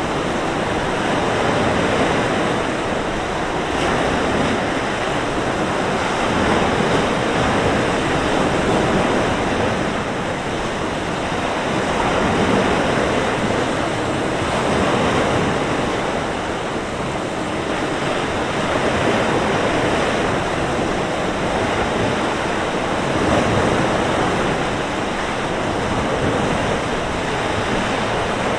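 Mediterranean surf breaking and washing up a beach: a continuous rushing that swells and eases every few seconds, with wind blowing across it.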